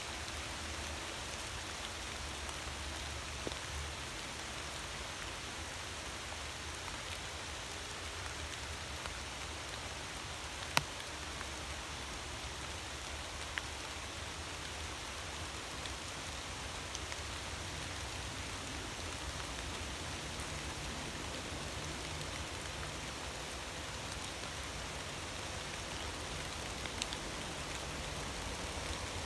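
Steady rain falling, an even hiss with a few sharp drip-like taps, the loudest about eleven seconds in.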